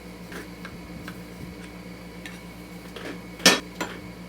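Steel tools and engine parts clinking as the rotor puller and the freed flywheel rotor are handled. A few light clicks, then one loud metal clank about three and a half seconds in.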